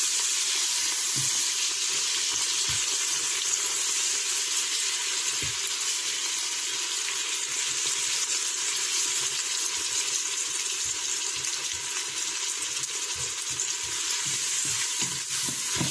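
Onions, garlic and tomatoes sizzling in hot oil in an electric pressure cooker's pot as they are sautéed, stirred with a spoon, with a few soft knocks of the spoon against the pot.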